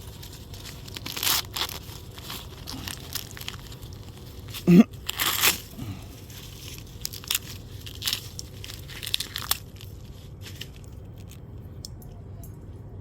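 Husk leaves being torn and peeled off a freshly picked ear of sweet corn: irregular rustling rips, with one brief louder sound a little before five seconds in. The tearing stops about ten and a half seconds in.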